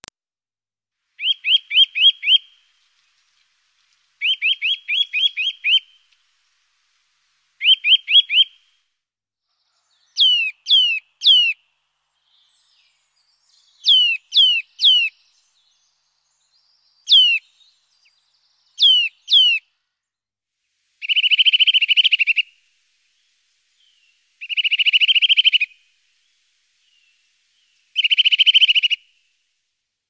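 Songbird calling in separate short phrases: quick runs of four or five short notes, then sets of two or three sharply falling whistles, then three buzzy trills about a second long near the end.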